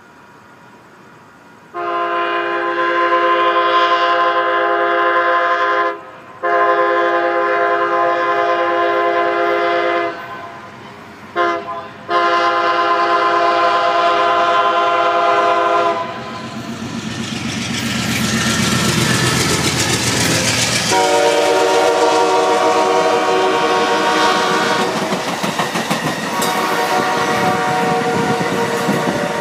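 Amtrak passenger train's locomotive air horn sounding the grade-crossing signal: two long blasts, a short one and a long one. The train then passes close by with a loud rumble and wheels clattering over the rail joints, and the horn sounds twice more as it goes by.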